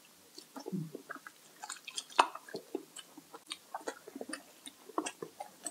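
A person eating: chewing with wet mouth smacks and small clicks, coming irregularly.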